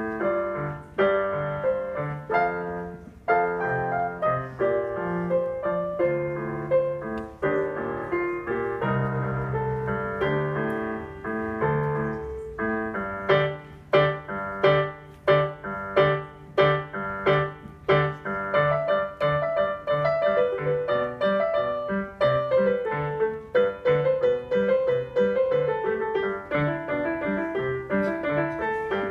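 Solo piano piece played on a digital piano, with a run of loud, evenly spaced chords in the middle followed by quicker running notes.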